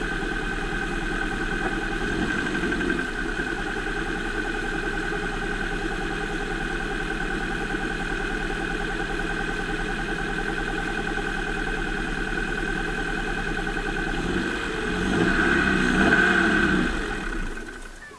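2005 Volvo S40 engine running at idle on a worn rear engine mount, steady with a constant whine over it. About fifteen seconds in it swells louder for a couple of seconds, then fades away near the end.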